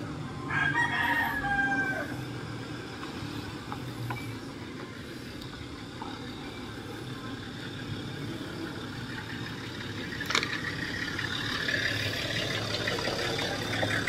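A rooster crows once, about half a second in. Under it and after, the Nissan Patrol's engine runs steadily as the vehicle drives up, growing louder near the end, with one sharp click about ten seconds in.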